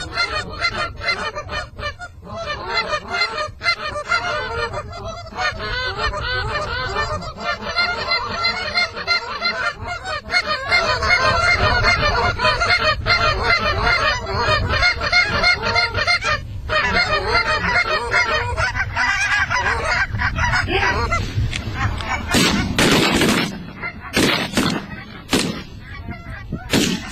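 A large flock of geese honking, many calls overlapping in a dense chorus that thins out near the end. A steady low wind rumble sits underneath.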